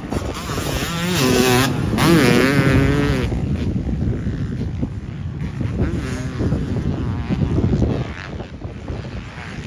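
Small dirt bike engine revving. About a second in, its pitch climbs and wavers for about two seconds, with another short rev near six seconds and a lower running sound between.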